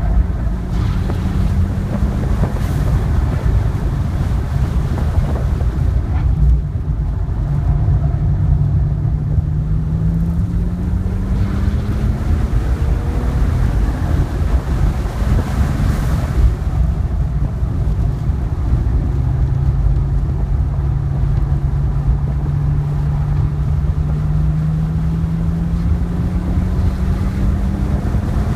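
2010 BMW 3 Series engine heard from inside the cabin under wind and road noise. The engine note climbs in pitch as the car accelerates, once in the first half and again steadily over the last third, with a slower stretch in the middle through a tight corner.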